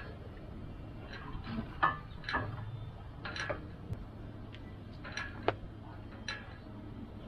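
Light, sharp clicks at irregular intervals, about one a second, over a low steady hum.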